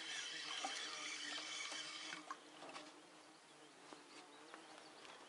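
Spinning reel being cranked to bring in a hooked fish: a steady whir that stops about two seconds in, followed by a few faint clicks as the line is handled.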